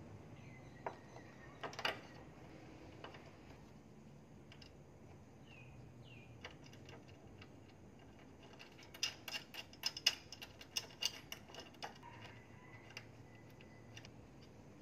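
Faint, scattered small metallic clicks and ticks, with a quick flurry of them midway, from bolts, washers and an Allen key being handled and turned while fastening an LED light bar's mounting hardware.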